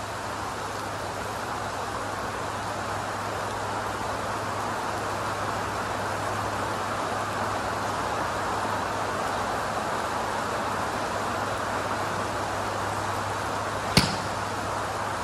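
Steady rain hiss with a low steady hum underneath, broken once about fourteen seconds in by a single sharp click as a Mizuno MP-33 blade iron strikes a golf ball off a range mat.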